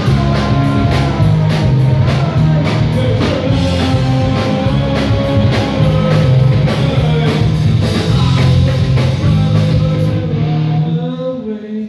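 Rock band playing loud, with drum kit, distorted electric guitar and bass. About ten seconds in the drums stop and the last chord rings out and fades.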